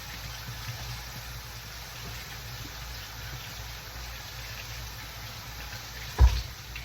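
Kitchen tap water running steadily, with one sharp knock about six seconds in.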